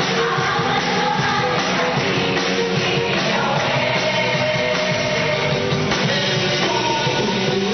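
A choir singing with instrumental accompaniment, held notes over a steady musical backing.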